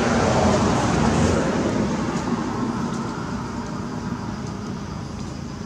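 A passing road vehicle, a steady rushing noise that is loudest in the first couple of seconds and then slowly fades.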